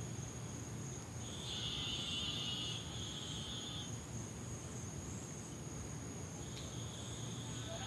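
Night insects, likely crickets, trilling in bouts over a steady high-pitched insect drone. One trill starts about a second and a half in and fades out around four seconds; another starts near the end.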